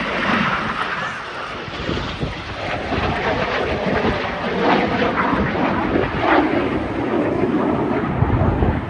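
Jet noise of Red Arrows BAE Hawk jets flying low and fast over the sea: a loud, steady rushing sound that swells just as it begins.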